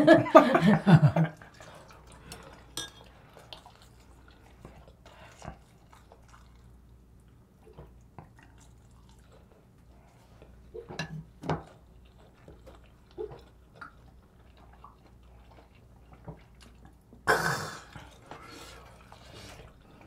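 Table sounds of a meal: spoons, chopsticks and a ladle clicking now and then against bowls and a pot, with soft eating noises. A short, louder noisy burst comes about three-quarters of the way through.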